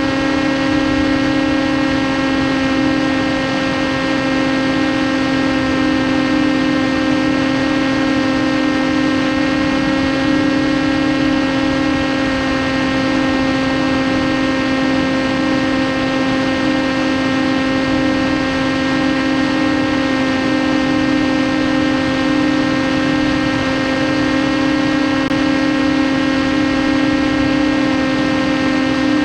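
Brushless electric motor and pusher propeller of a TBS Caipirinha 2 FPV flying wing running at steady cruise throttle: a constant, unchanging whine over a haze of air rushing past the onboard camera.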